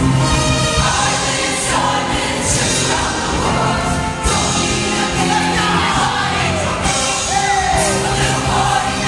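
Show choir singing over loud amplified backing music, with group vocals sliding between notes above a steady accompaniment.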